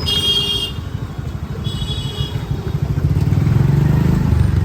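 A motorcycle engine running close by, getting louder about three seconds in, with two short high-pitched beeps in the first two seconds.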